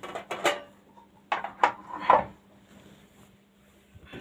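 Metal kitchen vessels knocking and clinking against each other and the dishwasher rack as they are lifted out: a few knocks in the first half second and three more between about one and two seconds in, then it goes quiet.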